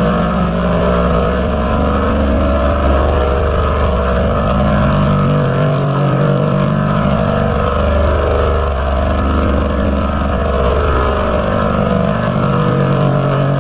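Loud, heavily distorted and pitch-layered 'G-Major' audio effect: a dense, steady buzzing drone with a strong low hum and no pauses.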